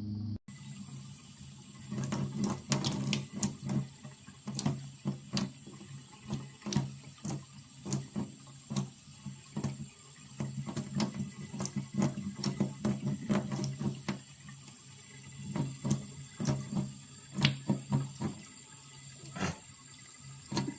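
A cat lapping from a thin stream of running tap water: a steady trickle broken by quick, irregular splashing laps, a few a second, starting about half a second in.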